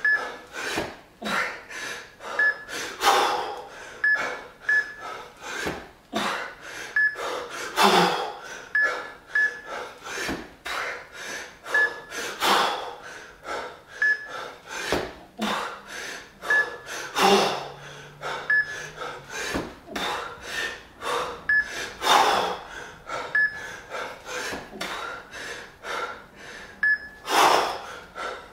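Hard, rhythmic breathing of a lifter working through a long set of two-arm jerks with a pair of 20 kg kettlebells, a sharp loud exhale with each rep about every four to five seconds and quicker breaths between. Short high electronic beeps, often in pairs, from a wrist-worn fixometer sound on and off.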